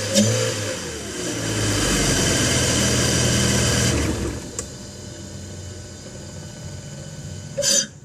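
BMW M54 straight-six engine running just after an oil change. It runs louder for a few seconds, then drops back to a quieter steady idle about four seconds in. A brief louder noise comes near the end.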